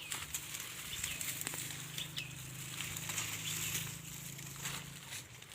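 Dry cowpea plants and weeds rustling and crackling as they are handled during harvesting, with a few short bird chirps and a steady low hum underneath.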